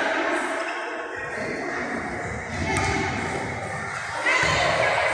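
Dull thuds of a handball and players' feet on a wooden sports-hall floor, under echoing children's voices.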